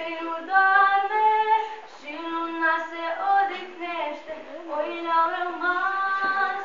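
A girl singing a song solo without accompaniment, in phrases of long held notes.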